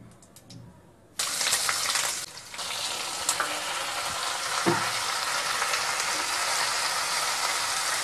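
A few faint crackles of cumin seeds in hot oil in a kadhai, then sliced onion and chopped tomato hit the oil about a second in and set off a loud sizzle. The frying then runs on steadily as the pan is stirred with a spatula.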